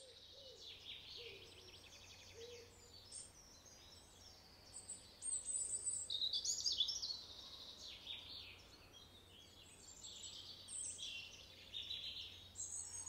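Small songbirds singing and chirping, with a busier, louder run of calls in the middle, over a faint steady low hum.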